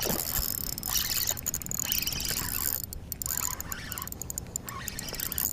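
Fishing reel ticking irregularly as an angler fights a hooked fish, over a steady hiss of wind and water.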